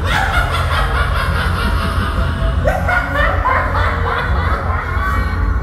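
A man's recorded laughter, quick repeated 'ha-ha' bursts cackling on, with a new, lower-pitched run of laughs starting a little under halfway through, over a low steady hum.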